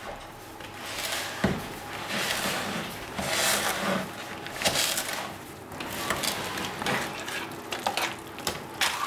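Metal wire whisk working thick cream cheese and quark in a plastic bowl: uneven scraping, squishing strokes, with a few sharp clicks of the wires against the bowl.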